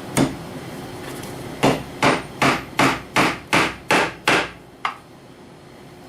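Hammer driving a tack through leather into a wooden rifle rest: one blow, a short pause, then a run of eight even blows about two and a half a second, and a lighter final tap.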